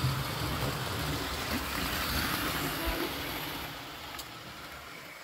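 Hornby model steam locomotive and its coaches running along the track, a steady whirring noise that fades as the train moves away.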